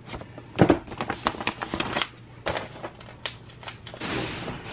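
Paper packets rustling and sliding against each other and the cardboard box as they are handled, in a run of short crinkles and taps. The loudest is a knock about two-thirds of a second in, and a longer sliding rustle comes near the end.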